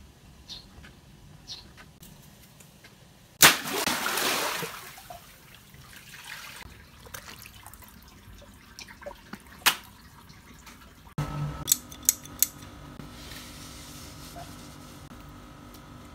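A water-filled stretchy rubber toy, swollen by a garden hose, bursts with one sharp bang about three seconds in, and its water gushes and splashes out for about a second and a half. A few sharp clicks follow later.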